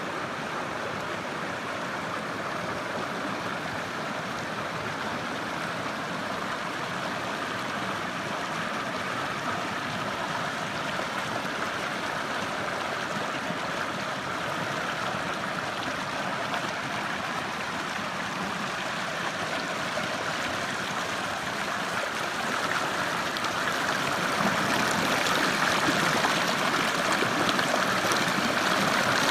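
Shallow rocky stream rushing and splashing over boulders in a steady wash of water noise, growing louder over the last several seconds.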